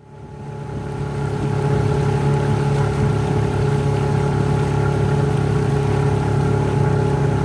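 Small boat engine running steadily, fading up from silence over the first two seconds, then holding an even pitch.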